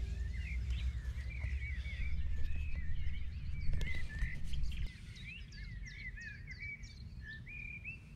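Small songbirds singing continuously in quick warbling phrases over a low wind rumble on the microphone, which drops away about five seconds in.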